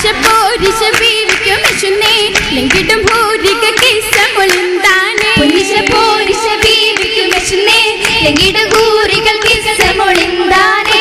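Oppana: a Mappila song sung by a group of voices, with the dancers' rhythmic hand claps keeping time.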